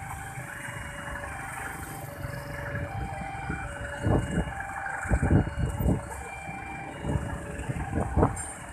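Railway level-crossing warning alarm repeating short electronic tones at several pitches as a passenger train approaches, over a low rumble of traffic. Louder low surges from motorcycles come about four, five and eight seconds in.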